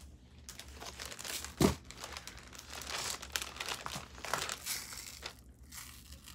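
Clear plastic zip-top bag crinkling as it is handled, with one louder thump about one and a half seconds in.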